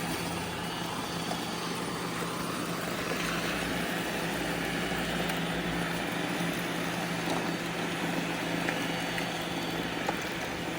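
Bissell and Shark robot vacuum cleaners running, a steady motor hum with an even whir of noise over it.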